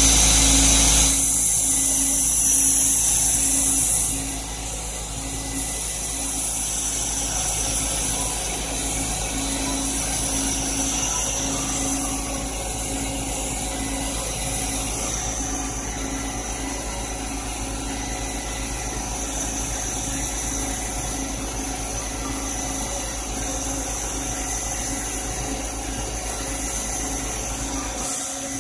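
Laser cutter running as its head traces cuts: a steady machine hum with a high hiss and a faintly pulsing tone, louder for the first four seconds. The deepest part of the hum cuts out near the end.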